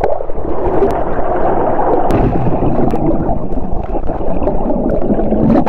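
Muffled, steady rushing and bubbling of water heard through a submerged camera, as a person churns the water around it, with a few faint clicks.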